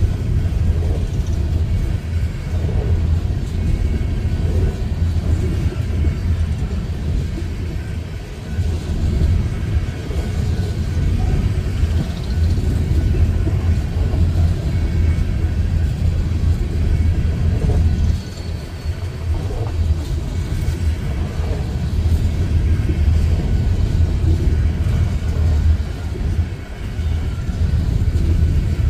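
Empty coal train's gondola cars rolling past close by on steel wheels: a loud, steady low rumble that dips briefly a few times as the cars go by.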